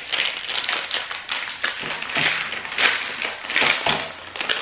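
A protein bar's plastic wrapper crinkling and crackling as it is torn open and peeled back by hand, with many small irregular clicks.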